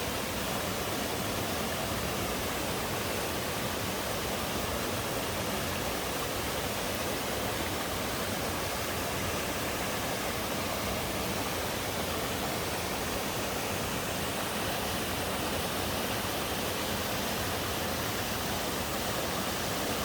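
Mountain-stream twin waterfall pouring steadily: an even, unbroken rush of falling water.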